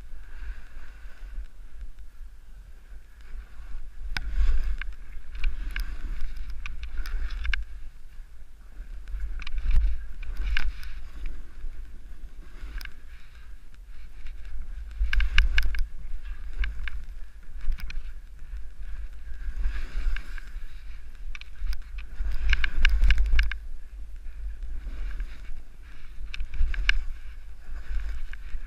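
Snowboard riding down a snowy slope: steady wind rumble on the helmet camera's microphone, with repeated bursts of scraping and chatter as the board's edge carves through the snow every few seconds.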